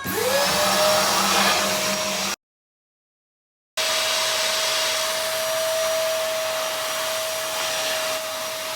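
Vacuum cleaner motor switched on, its whine rising quickly to a steady pitch as it spins up, then running. The sound drops out abruptly for about a second and a half, then comes back with the motor running steadily.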